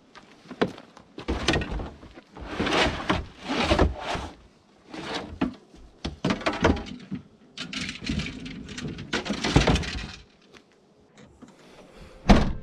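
A plastic storage tote and cooler are being loaded into an SUV's cargo area: a run of irregular scrapes, rustles and knocks as they are slid in and shifted about. Near the end, the rear liftgate shuts with a single loud thud.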